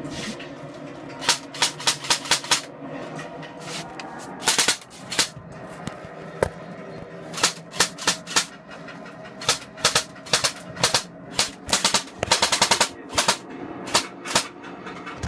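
Airsoft guns firing, a run of sharp single shots with two short rapid bursts, one about four and a half seconds in and one near the end, over a steady low hum.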